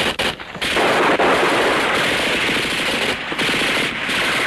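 Rapid automatic gunfire: a few separate shots, then from about half a second in a long, nearly unbroken stream of rapid shots, dipping briefly twice near the end.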